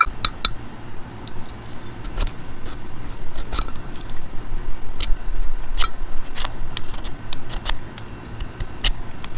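Metal grater of a Zippo fire-starting multi-tool being scraped hard against a piece of wood, with irregular clicks and scraping.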